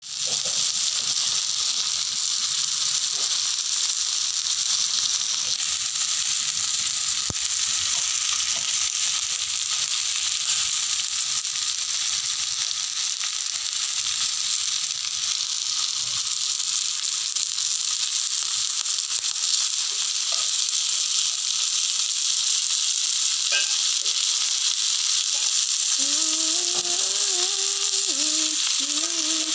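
Chicken pieces sizzling on a hot ridged grill pan: a steady frying hiss.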